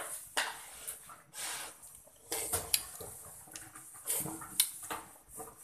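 Someone tasting hot curry sauce from a ladle: a series of short breathy blows and slurps about once a second, with a few light clinks of metal.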